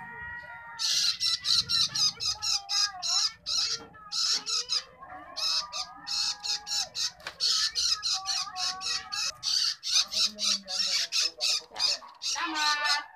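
Young long-tailed shrikes begging to be fed: a rapid series of harsh rasping calls, about three a second, stopping shortly before the end.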